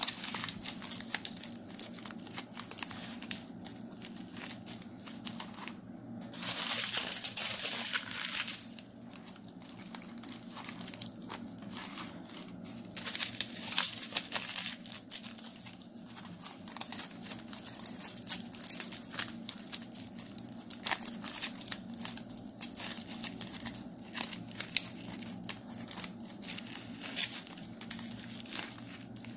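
Aluminium foil crinkling and crackling as it is crumpled and pressed into shape by hand, louder for about two seconds around 6 s in and again briefly near 13 s.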